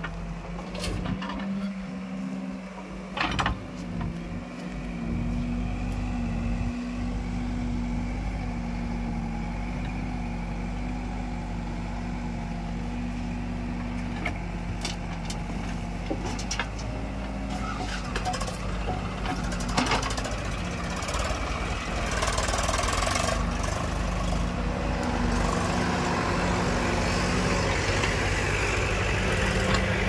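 Diesel engine of an Escorts Digmax backhoe loader running steadily beside a tractor, with dirt pouring from the bucket into a steel trailer. A few sharp knocks come through, the loudest about twenty seconds in, and the noise grows a little louder over the last third.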